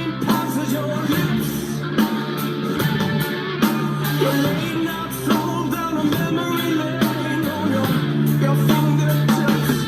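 Rock song with electric guitar, bass, drums and a male lead vocal singing.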